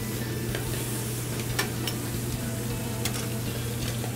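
Food sizzling in sauté pans over gas burners, with a few sharp metal clicks of tongs against the pans and a steady low hum underneath.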